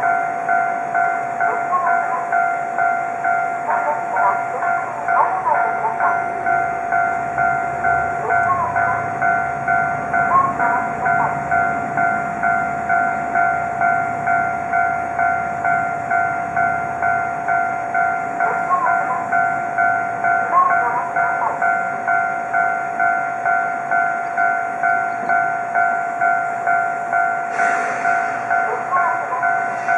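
Japanese level crossing's electronic warning bell ringing in a fast, even, repeating rhythm of two steady tones, with a train's low rumble passing under it about a third of the way in.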